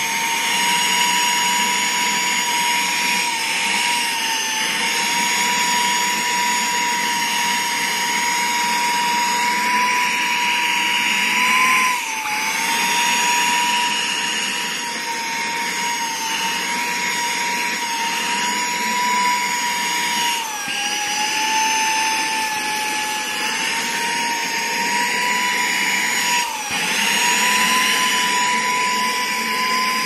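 Saker 3-in-1 cordless mini handheld vacuum with a brushless motor, running with a steady high whine and a rush of air as it sucks debris from the seat crevices of an upholstered recliner. The whine dips in pitch briefly a few times and comes back up.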